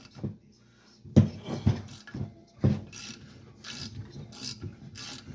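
Craftsman 3/8-inch drive 96-tooth flex-head ratchet being swung back and forth on a bolt, its pawl clicking in short repeated strokes about twice a second, with a couple of louder knocks in the first half.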